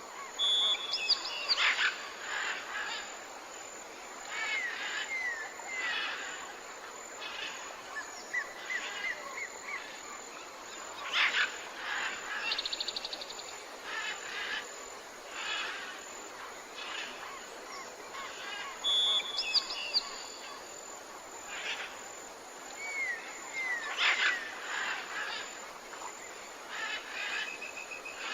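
Mixed birdsong, several birds calling and singing with short chirps, whistles, slurred notes and trills over a steady outdoor hiss. The same passage appears to repeat after about eighteen seconds, as in a looped recording.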